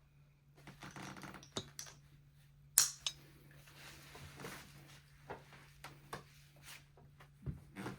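Handling a backpack and its contents: rustling with a scattering of sharp clicks and clinks, the loudest a sharp snap about three seconds in.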